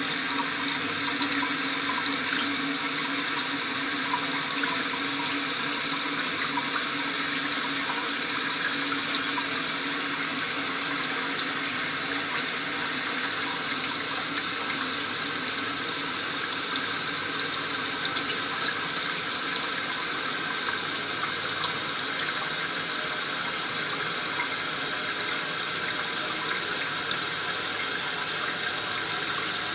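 Toilet tank refilling through a newly installed Korky fill valve: a steady rush of water into the tank and bowl that runs on without a break.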